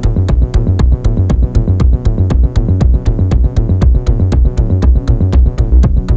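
Electronic music track with a steady drum-machine beat: deep bass pulses under a fast, even run of crisp high ticks, about four a second.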